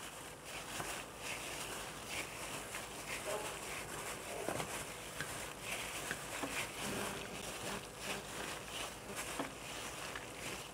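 Sliced buffalo meat strips being mixed in a bowl with a marinade of thick soy sauce and corn flour: faint, irregular small clicks and rustles throughout.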